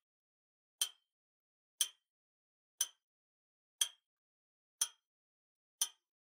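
Clock ticking: sharp single ticks, one each second, a countdown-timer sound effect.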